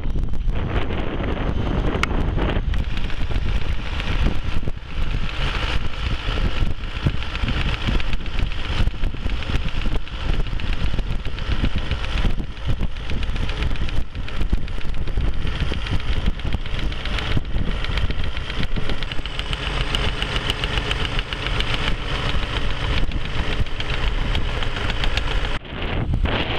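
Zetor 9245 tractor's diesel engine running steadily while it drives a Nokka snow blower clearing snow.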